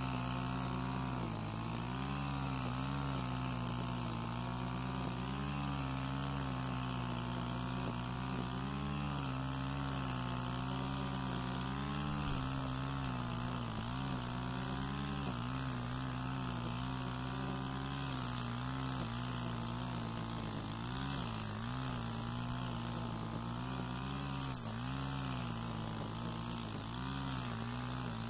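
Stihl FS130 brushcutter's 4-MIX engine running at high revs while mowing grass with 2.7 mm twisted-square trimmer line. The engine pitch repeatedly dips and recovers with each swing through the grass, over a steady high hiss.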